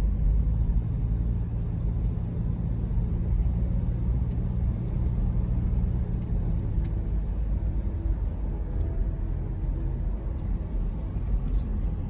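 A car running on the road: a steady low engine and road rumble.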